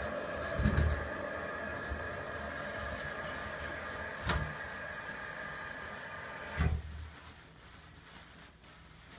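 2006 Mansfield Alto toilet refilling after a flush: a steady hiss and whine of water running in, with a couple of light knocks. About two-thirds of the way in it shuts off with a clunk as the fill valve closes on a full tank.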